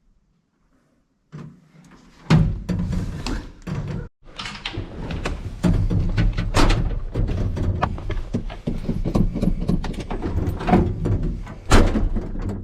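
The 1976 GMC High Sierra pickup's engine catching suddenly about two seconds in and then running loudly, with a short knock just before it starts.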